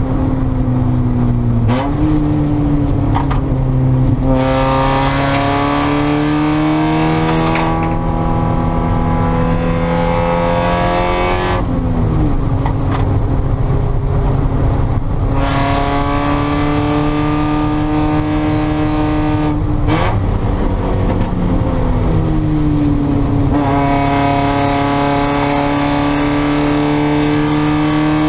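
Spec Miata race car's four-cylinder engine under hard acceleration on track. Its pitch climbs slowly, then drops sharply about four times as the driver shifts or lifts, and climbs again each time.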